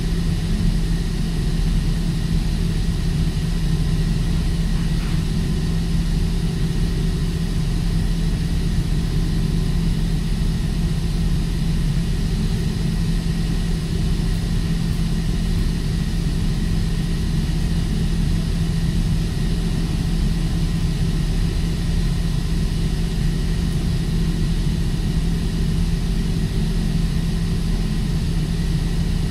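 Steady, loud drone of ship's engine-room machinery: a constant low hum and rumble.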